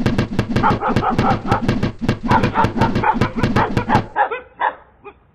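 A dog barking rapidly and without a break for about four seconds, then a few higher yips as it trails off.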